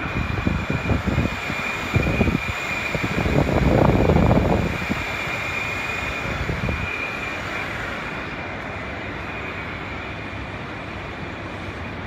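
Air-conditioning unit's cross-flow fan running: a steady rush of air with a thin high tone through the first half. Over the first five seconds, air from the unit buffets the microphone in low, uneven gusts, strongest about four seconds in.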